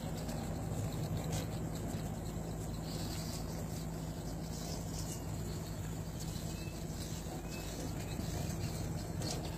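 Steady low drone of a ship's engines with a constant rushing noise over it.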